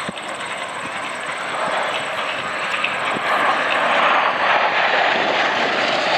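Formation of Aero L-39 Albatross jet trainers passing overhead, a steady rushing jet roar that swells from about two seconds in and is loudest near the end.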